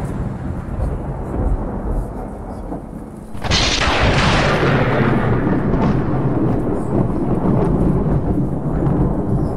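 Thunderstorm sound effect played for the stage: low rumbling, then a sudden loud thunderclap about three and a half seconds in that fades into continued heavy rumbling.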